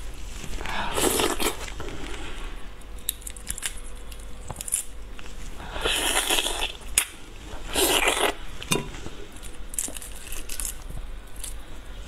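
Whole prawns being cracked and torn apart by hand, with sucking and chewing at the mouth: crackling, crunching shell noises and scattered clicks, with louder rustling bursts about a second in, near the middle and shortly after.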